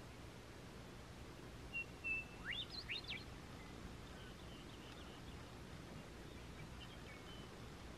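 Western meadowlark singing. There is one song phrase about two seconds in: a couple of clear whistles, then quick notes sweeping up and down. Fainter notes follow later over a steady low background hiss.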